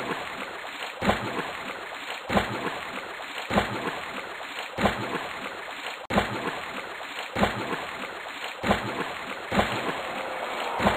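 Water splashing in an even rhythm from swimming strokes, about one stroke every 1.2 seconds, over a steady wash of water.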